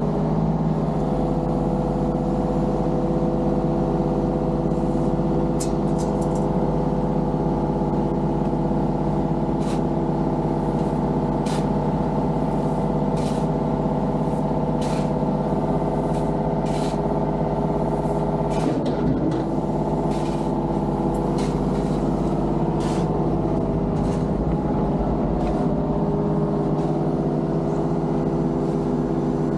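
Compact construction machine's diesel engine running at a steady speed, with scattered sharp clanks and knocks over it.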